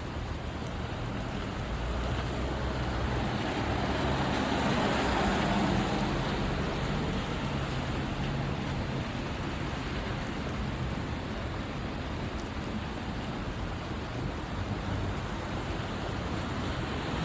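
Heavy rain falling steadily, a dense even hiss that swells a little a few seconds in, with a low rumble underneath.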